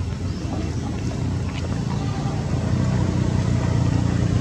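Steady low engine-like drone, growing slightly louder in the second half.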